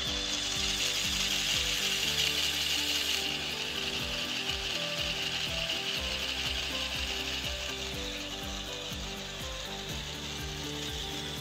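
Mould King plastic building-block V8 engine model running on its electric motor: the plastic pistons, crankshaft and gears clatter with fast, even clicking over a steady hiss, a little louder in the first three seconds.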